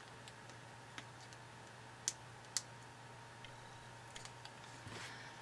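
A few scattered light clicks and taps of fingers handling small squares of foam tape and paper, peeling and pressing them on, the sharpest about two and two and a half seconds in, over a faint steady hum.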